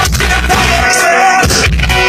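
Live pop-rock band playing through a concert PA, recorded on a phone's microphone. The bass drops out briefly about a second in, then comes back.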